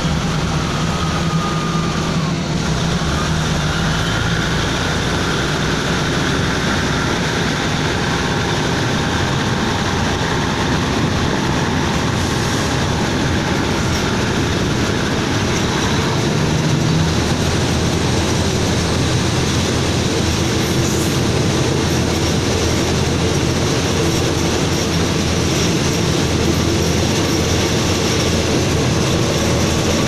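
Express passenger train pulling out of a station and gathering speed, heard from an open coach door: a steady rumble of the coaches and wheels on the rails that grows a little louder about halfway through.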